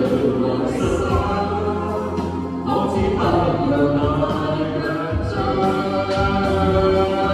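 A street band playing a nostalgic pop song, with sung vocals carried over the accompaniment.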